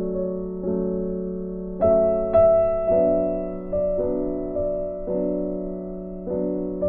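Soft background music of slow keyboard chords, each struck and left to ring and fade before the next.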